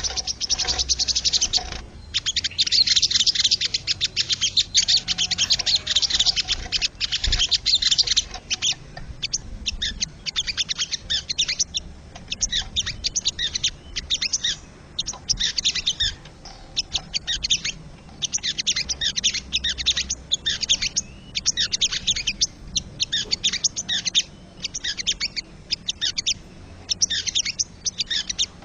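Wild sogon bird singing: quick, high chattering phrases, each run lasting a second or two with short pauses between.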